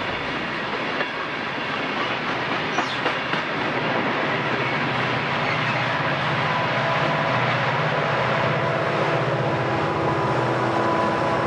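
Southern Pacific diesel locomotives hauling a freight train past, the engines droning steadily over wheels clicking on the rail joints. A few sharp clicks come in the first seconds, and the sound grows slowly louder as the locomotives come closer.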